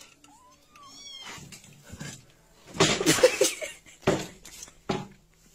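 A cat meowing several times, with short calls whose loudest come about three seconds in.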